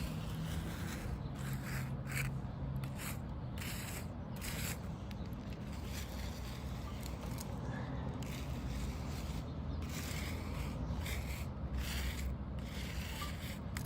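Repeated irregular scraping strokes of a spreading tool dragged through loose cold-patch asphalt (QPR) as it is spread out and levelled, over a steady low hum.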